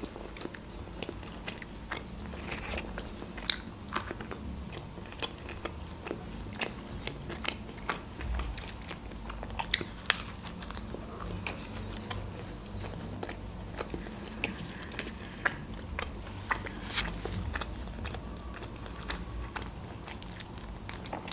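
Close-up eating: bites into a folded, pizza-like baked roll and steady chewing, with sharp crunches of the crust now and then, clearest a few seconds in, about ten seconds in and near seventeen seconds.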